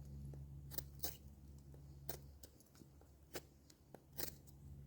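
Faint, scattered sharp clicks over a low steady hum; the hum cuts out about two seconds in.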